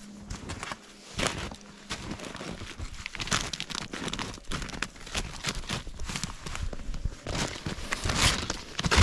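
Footsteps crunching in deep snow, then the rustle, creak and clicks of snowshoe bindings and straps being fastened, followed by louder, denser crunching of steps in snowshoes near the end.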